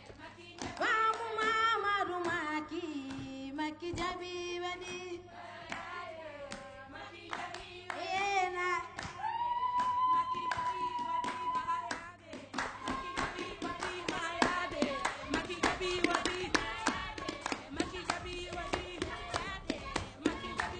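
A woman singing a Wolof griot praise song in a high voice over rhythmic hand clapping and percussion strokes. About halfway through she holds one long note, and the clapping and percussion then grow denser and faster.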